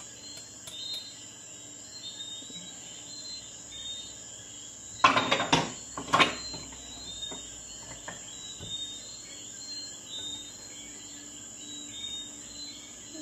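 A wire hand whisk stirs flour into batter in a glass bowl, with a few loud clattering knocks of kitchenware about five to six seconds in and fainter clinks later. Insects chirp steadily in the background.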